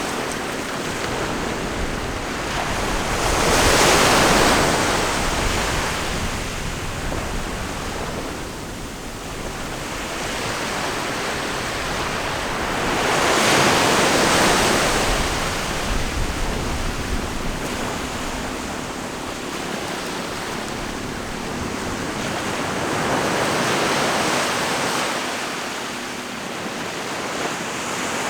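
Ocean surf: three waves break about ten seconds apart, each a swelling rush that fades back between them.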